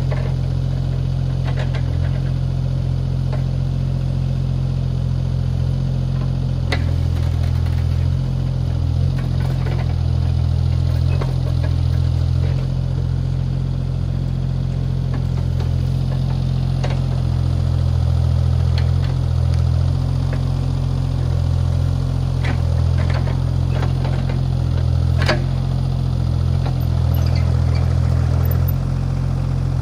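Mini excavator's diesel engine running steadily at one speed, with scattered sharp clicks and knocks over the drone.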